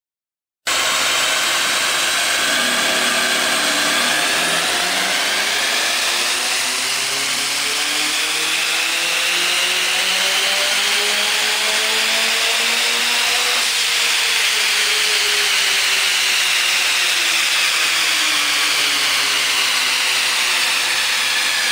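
Turbocharged Lada Kalina's engine, fitted with an IHI VF35/43 turbocharger, making a power run on a chassis dynamometer: the engine note climbs steadily under load for about ten seconds to peak revs, then winds back down.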